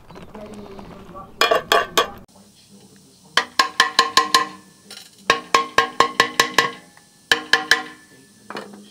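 Hammer blows on a steel Ford 9-inch rear axle housing, ringing out in three quick runs of several strikes each. About a second and a half in, a cordless impact driver gives a short clattering burst on a nut.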